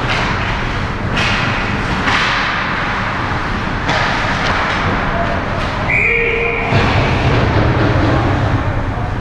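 Ice hockey play heard close to the goal: skate blades scraping and spraying on the ice, with stick and puck knocks. About six seconds in there is a short whistle blast.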